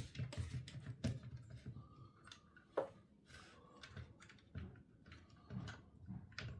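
Scattered light clicks and taps of small chainsaw parts being handled as the engine of an Echo CS-2511T clone top-handle chainsaw is worked at to lift it out, with one sharper knock a little under three seconds in.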